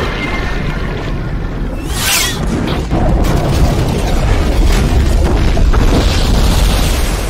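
Movie sound effects of underwater explosions: a swoosh about two seconds in, then deep booms and a heavy rumble from about three seconds on, with the film's music score underneath.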